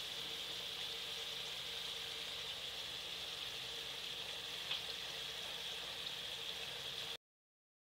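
Crinkle-cut potato slices deep-frying in oil in a pan: a steady sizzle, with one small tick about five seconds in. The sound cuts off abruptly near the end.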